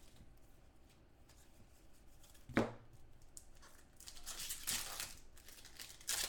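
Foil trading-card pack wrappers crinkling and tearing as packs are ripped open by hand, with a single dull knock about two and a half seconds in.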